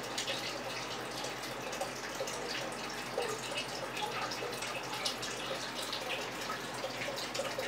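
Steady trickling water, with many small quick drips and splashes.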